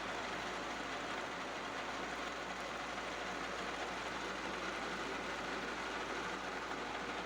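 Metal lathe running steadily while machining a pulley.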